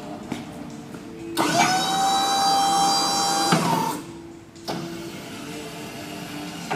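Hyster W45XT electric pallet jack's hydraulic pump motor whining for about two seconds as the forks are raised. The whine settles to a steady pitch just after it starts and slides up as it cuts off.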